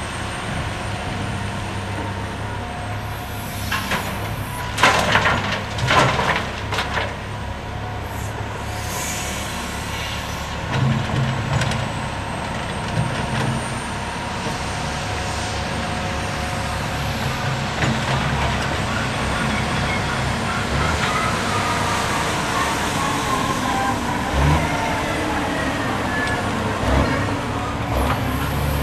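Diesel engines of a Caterpillar 345B L excavator and a Caterpillar articulated dump truck running steadily while the excavator loads the truck. About four to seven seconds in, loud clattering as a bucketful of earth and rock drops into the truck's steel body, with more knocks around eleven seconds and a single thud later. A slow falling whine runs through the second half.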